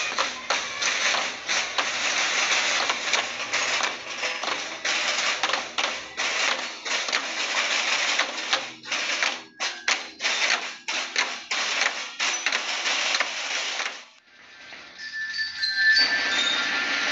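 School marching band drums beating a rapid marching cadence. About fourteen seconds in the drumming breaks off, and high bell-like tones of a band tune come in.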